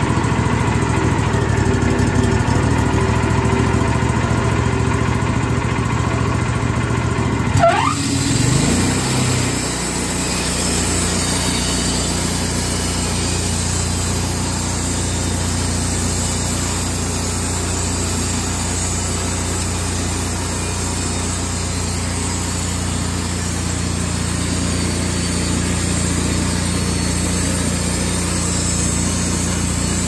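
Wood-Mizer LT40 band sawmill running steadily as its blade cuts through an oak log. About eight seconds in there is a brief sliding whine, and the machine then runs on evenly with more hiss.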